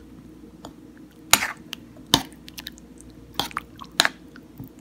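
Close-up mouth sounds of someone eating khao piak rice-noodle soup: four short, sharp slurps and chews about a second apart.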